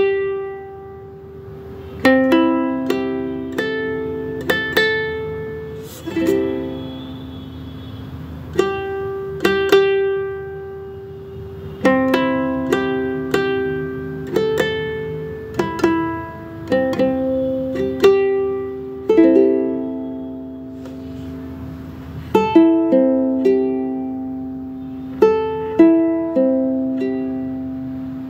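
Background music: a plucked-string tune of notes and chords that ring and fade, struck every second or so.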